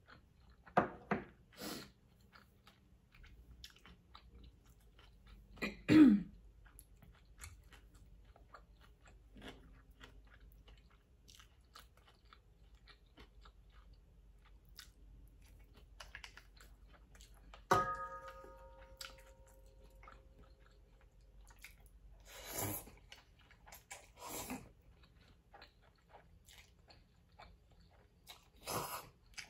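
Close-up eating sounds of ramen noodles: soft chewing throughout, broken by several short louder slurps. About halfway through comes a single clink that rings briefly, as of chopsticks striking the bowl or pot.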